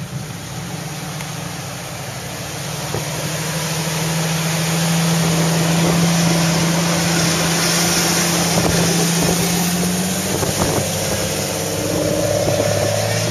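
Jeep Wrangler engine pulling steadily as it crawls up a steep rock chute, growing louder as it comes up close, with wind buffeting the microphone. Near the end, a second engine note joins in.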